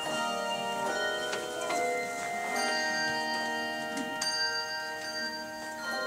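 A handbell choir playing a hymn arrangement: chords of struck handbells, a new chord every second or so, each ringing on and overlapping the next.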